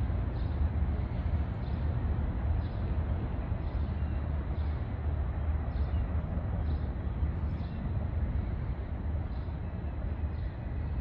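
Steady low rumble with an even hiss of outdoor background noise.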